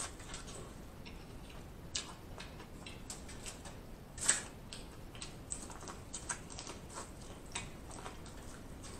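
Close-miked eating of corn on the cob: kernels bitten off and chewed, heard as irregular sharp clicks and mouth smacks, with one louder one about four seconds in.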